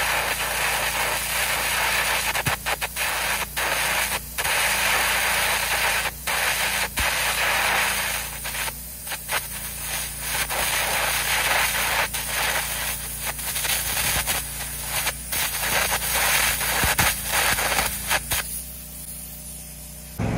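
Air carbon arc gouging with a 5/32 carbon rod: a loud, steady blasting hiss and crackle of the arc and compressed-air jet blowing molten steel out of the groove, cutting out briefly again and again as the arc breaks, and stopping about two seconds before the end. A steady low hum runs underneath.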